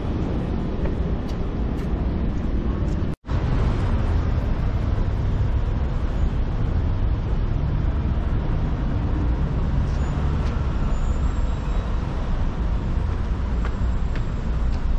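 Steady low rumble of road traffic, with the sound dropping out completely for a split second about three seconds in.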